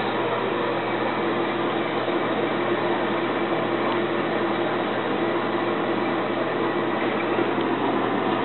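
Steady hiss of running water in the restroom plumbing, with a faint steady whine through it.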